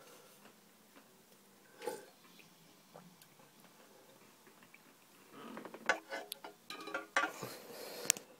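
Faint room tone with a single click, then from about five seconds in a run of light clicks and knocks from a phone being handled.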